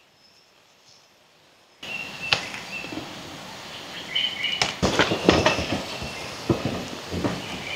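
Near silence for about the first two seconds, then leaves rustling and twigs and stems snapping in quick irregular clicks as gnetum (rau nhíp) leaves are picked by hand and branches are pushed aside in forest undergrowth.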